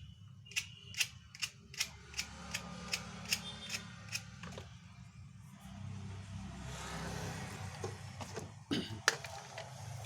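A run of sharp clicks, two or three a second, over a steady low hum, then a short rustle and one loud click near the end.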